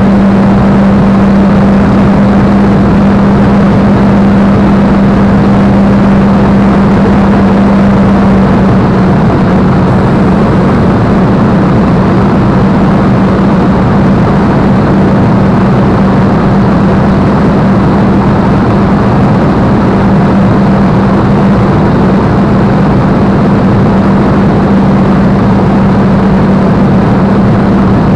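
Spitfire's piston engine and propeller running steadily in flight, heard from inside the cockpit: a loud, unbroken drone with a strong low hum.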